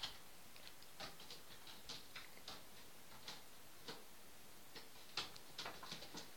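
A cat's claws catching and scratching on a carpeted climbing board and a hanging rope as it climbs: a faint, irregular series of short scratches and taps.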